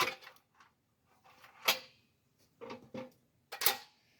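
Short clunks and knocks from a Jawhorse work clamp being handled, as a wooden carving is set in its jaws: about five separate knocks over a few seconds, with quiet between them.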